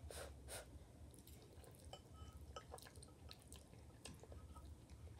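Faint eating sounds of a person slurping and chewing ramen noodles: a couple of wet slurps at the start, then scattered soft mouth clicks.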